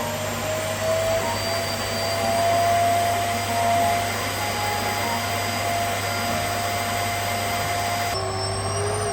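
Lydsto H4 vacuum cleaner motor running with a steady whine after spinning up. About eight seconds in its sound drops a step, and near the end the pitch starts to fall as it winds down.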